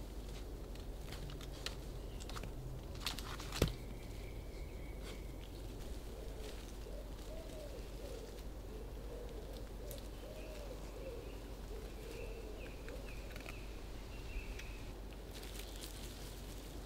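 Quiet outdoor ambience with a few sharp clicks and rustles, one loud click a few seconds in, and a faint, low, wavering series of animal calls, likely a bird, repeating through the middle.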